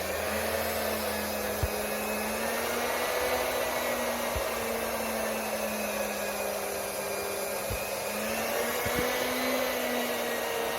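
Electric fan running: a steady whir with a slightly wavering motor hum, switched on or cut in abruptly, with a few faint ticks.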